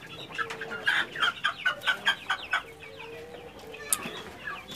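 Pelung chickens clucking: a rapid run of short calls that thins out after about two and a half seconds.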